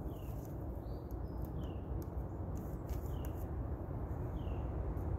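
A bird calling with short, falling whistled notes repeated about every one and a half seconds, over a faint steady low rumble of outdoor background noise.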